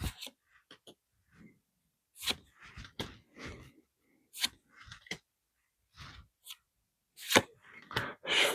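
Foil Pokémon booster pack and trading cards being handled: irregular short crinkles and rustles of the wrapper and cards, a handful of them over several seconds with quiet gaps between.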